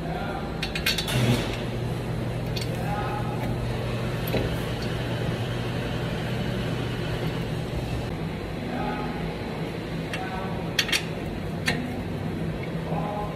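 Sharp metal clicks and knocks from a brake caliper being handled and fitted on a pickup's front wheel hub. Under them is a steady low machine hum that stops about eight seconds in, and faint voices can be heard.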